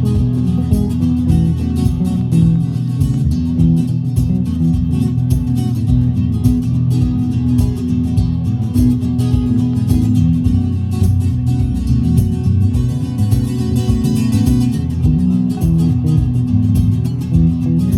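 Band music: guitars and bass playing over a steady beat.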